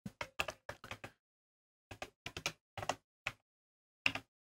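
Computer keyboard keystrokes: a quick run of taps, a second run about two seconds in, and a single tap near the end.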